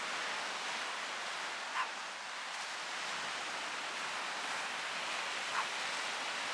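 Small sea waves breaking and washing up on a sandy beach, a steady surf hiss. Two brief faint sounds stand out, about two seconds in and near the end.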